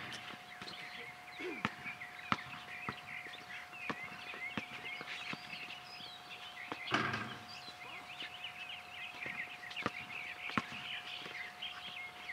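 Basketball being dribbled on an outdoor hard court: sharp irregular thuds about every half second to a second, with a louder, longer thump about seven seconds in as a shot hits the hoop. High chirping and a faint steady hum run underneath.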